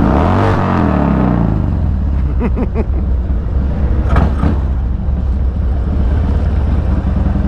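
2003 Harley-Davidson Dyna's V-twin engine running at low speed with a steady deep rumble; its note dips just after the start as the throttle eases.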